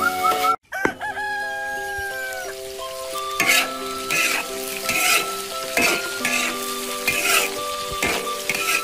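A metal spatula stirs and scrapes meat with chilies and scallions in a hot wok while it sizzles, with a scrape stroke about once a second in the second half. A rooster crows once, about a second in.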